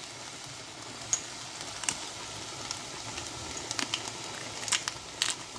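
Broccoli and red and green bell pepper frying in oil in a nonstick kadhai over a low gas flame: a steady soft sizzle with scattered crackles.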